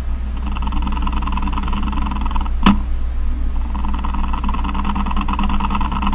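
Cricket trilling in bouts of a couple of seconds with short pauses, a fast buzzing pulse, over a steady low electrical hum. One sharp click about two and a half seconds in.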